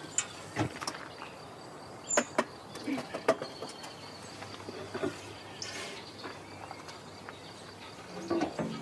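Scattered knocks and clicks of a door being handled and opened, over a faint steady insect chirring.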